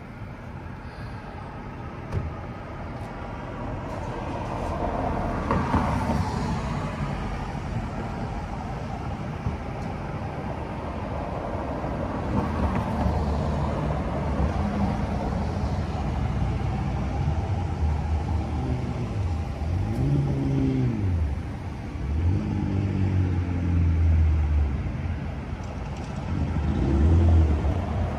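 Street traffic: cars and SUVs passing on the road, with a steady rumble of tyres and engines. In the second half several engines rise and fall in pitch as vehicles pull away and go by.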